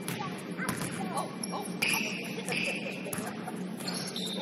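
Basketball game play on a gym court: sneakers squeaking about two seconds in and again near the end, scattered sharp taps and a ball bouncing, with faint distant voices over a steady low hum.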